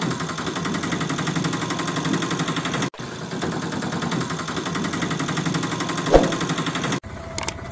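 Small engine running with a rapid, steady chug, the sound of an auto rickshaw's engine laid over the toy's movement. It cuts off abruptly and restarts about three seconds in, and near the end drops to a quieter steady hum with a few clicks.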